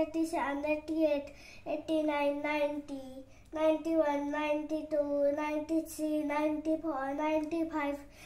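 A young boy counting numbers aloud in a sing-song, chanting voice, working through the high eighties and nineties.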